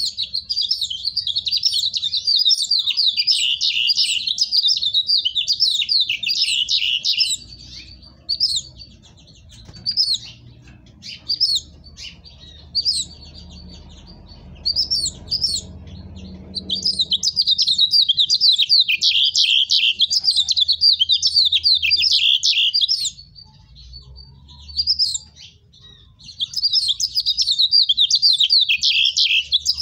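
Caged house finch singing long, warbling phrases: one at the start lasting about seven seconds, another about five seconds long in the middle, and a shorter one near the end, with single short chirps between them.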